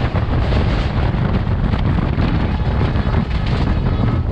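A moving express train's steady running rumble at an open carriage window, with wind rushing over the microphone.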